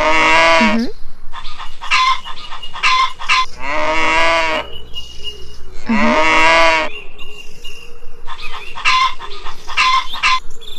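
Farm animals calling: three long drawn-out calls, each bending down in pitch at the end, with quicker choppy calls in between.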